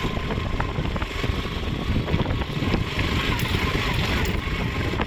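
Motorcycle engine running steadily while riding over a rough dirt road, with a few short knocks.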